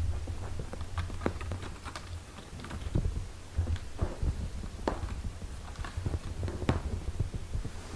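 Six-day-old kittens suckling at their mother, making scattered small clicks and smacks, over a low continuous rumble.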